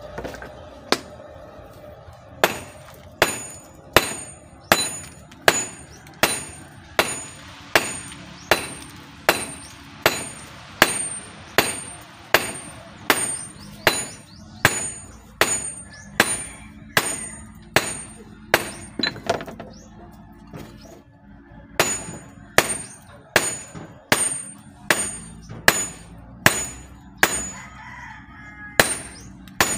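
Hammer forging a red-hot bowie knife blade on a steel block anvil: steady blows about three every two seconds, each with a high metallic ring, with a break of about two seconds a little past the middle.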